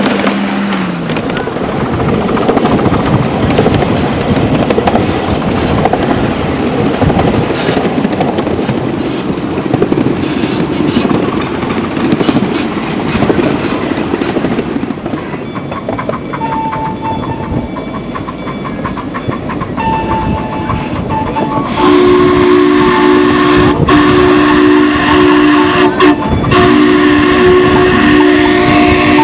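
A 7.5-inch gauge live-steam 4-8-4 locomotive and its riding cars rumbling and clattering along the track. Over the last seven seconds or so the engine's steam whistle sounds two notes at once in several long blasts.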